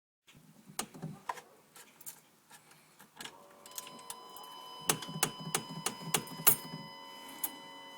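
Car keys jangling and clicking, as at a key going into the ignition, with a steady high electrical whine of several fixed tones coming on about three seconds in, just before the engine is started.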